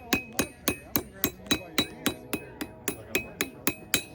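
Blacksmith's hammer striking a hot metal leaf on the anvil in a steady rhythm, about four ringing blows a second, shaping the flat leaf to give it depth.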